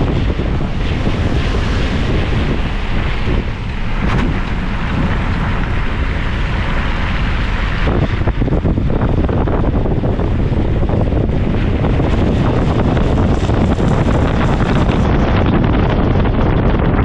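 Wind buffeting the microphone over the low sound of a vehicle running. The hiss in the upper range drops away about two seconds before the end.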